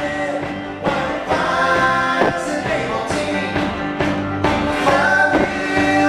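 Live folk song: a man singing while playing a five-string banjo in sawmill tuning, backed by fiddle and upright bass.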